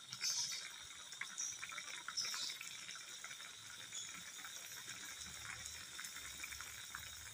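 Broth simmering in a wok: a steady soft bubbling hiss with small scattered crackles.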